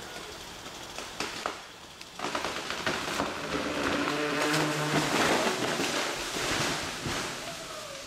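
Dead tree falling: a dense rush of cracking, snapping wood and swishing leaves as it crashes down through the surrounding branches. It builds from about two seconds in, is loudest in the middle and dies away near the end.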